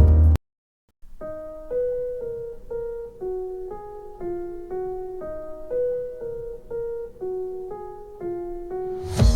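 Test music played through a smart speaker: a sparse piano melody in single notes, about two a second, after a brief silent gap. Just before the end, a louder electronic track with heavy bass cuts in.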